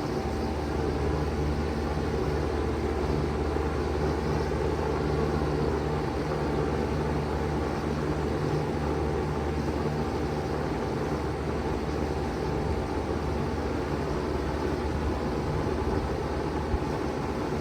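A 3-ton Bard wall-hung heat pump running steadily in cool mode: a low, even hum with the rush of its fan moving air.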